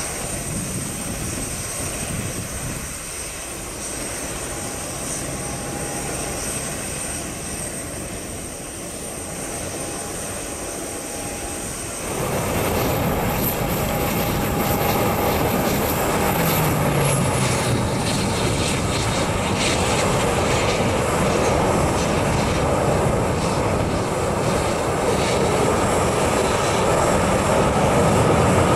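Jet engine noise from a Boeing 737-800: a steady whine with a thin high tone, then about twelve seconds in a sudden step to louder, fuller noise as the taxiing jet's CFM56 engines run at low power, with a low tone falling a few seconds after the jump.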